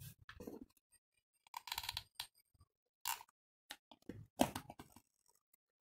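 A handful of short clicks and knocks with some rustling: hands handling a wool pompom and small craft pieces on a tabletop.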